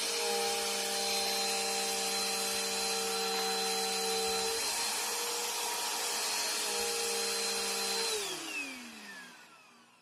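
Bissell upright vacuum cleaners running with a steady motor whine, then switched off about eight seconds in, their motors winding down with the pitch falling until they go quiet.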